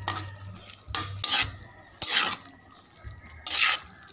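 A utensil scraping and stirring in a metal wok as noodles and shredded vegetables are tossed: three scraping strokes, roughly a second or more apart.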